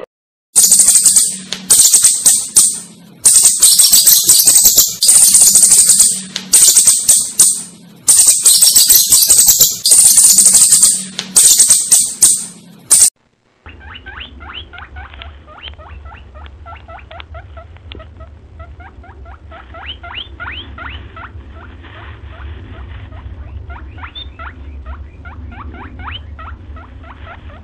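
Loud, choppy bursts of hissing noise that stop and start about every second, cutting off about halfway through. Then rabbits chew leaves: a fast run of faint crisp clicks over a low steady hum.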